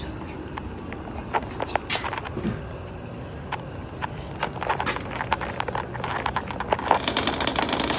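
Crickets trilling in one steady high note, with scattered clicks and knocks over it. The trill cuts off suddenly about seven seconds in.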